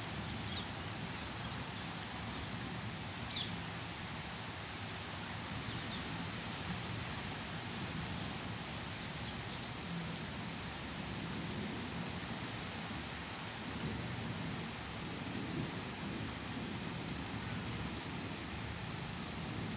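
Steady rain falling on leaves and surfaces, with a few sharp drop ticks in the first few seconds and a low rumble swelling now and then in the second half.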